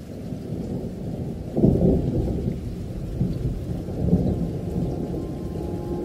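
Rolling thunder: a deep, low rumble that swells about one and a half seconds in and again around four seconds.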